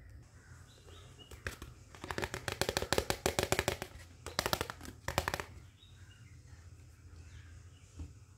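Hard plastic toy kitchen pieces clattering as they are handled: a fast run of clicks for about two seconds, then two shorter runs.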